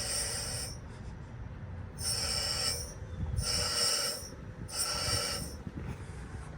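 Refrigerant gas hissing through the gauge manifold into the evacuated lines in four short bursts, each under a second, as the vacuum is broken before charging.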